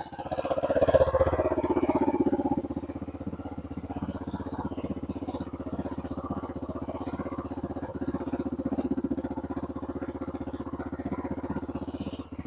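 Yamaha Grizzly ATV's single-cylinder four-stroke engine revs briefly about a second in, then idles steadily. It is running smoothly again on a freshly cleaned carburetor with the idle adjusted.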